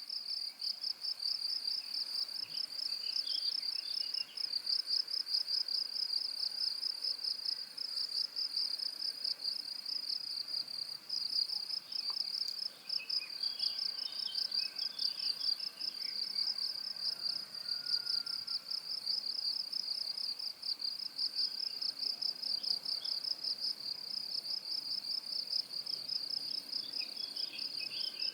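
Cricket chirping in a continuous, high-pitched trill of rapid, even pulses. Faint scattered chirps come up a few times behind it.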